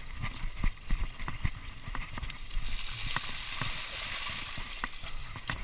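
Mountain bike descending a rough dirt track, its frame and parts knocking and rattling over bumps. From about halfway in, the tyres splash through muddy puddles.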